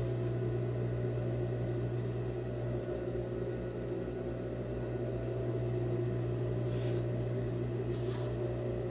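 Steady low machine hum, with two brief soft rustles of fabric being handled about seven and eight seconds in.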